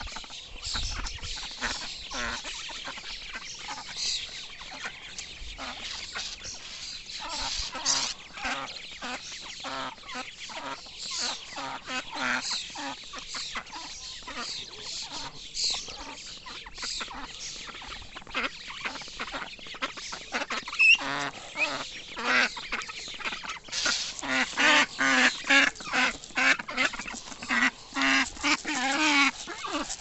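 A flock of ducklings peeping nonstop with high, rapid calls. About two-thirds of the way through, adult ducks join in with a rapid run of louder, lower calls.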